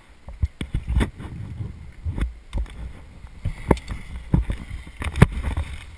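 Wind buffeting the camera's microphone as a low rumble, broken by a series of sharp knocks and clicks.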